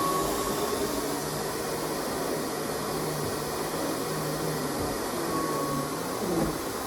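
Kenmore 400 Series canister vacuum running steadily, a constant rushing noise with a low hum that wavers slightly in pitch.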